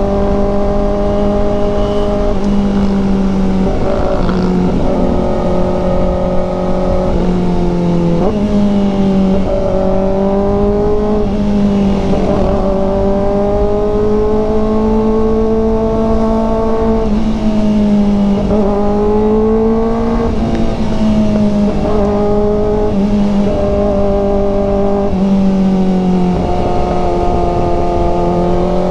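Kawasaki Ninja ZX-4RR's inline four-cylinder engine running at steady mid revs under way. The pitch dips and climbs a little several times with small throttle changes, over a low rush of wind and road noise.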